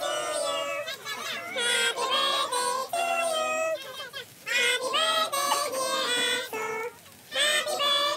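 A group of people singing a birthday song together to the person at the cake, with long held notes and a short pause between lines near the end.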